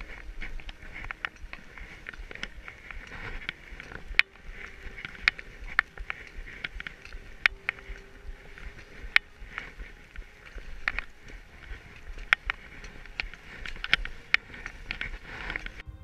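Skinning uphill on touring skis through snow: a steady swish and crunch of skis and snow with each stride, broken by sharp clicks every second or so.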